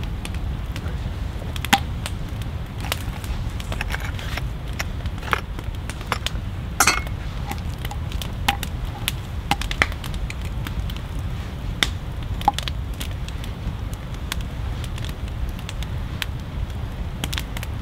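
Knife slicing raw goose breast on a wooden cutting board, beside a wood fire crackling with irregular sharp pops and a louder crack about seven seconds in, over a steady low rumble.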